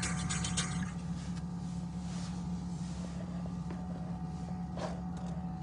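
Steady hum of a car idling, heard from inside the cabin. Clothing rustles near the start, and there is a brief rustle about five seconds in.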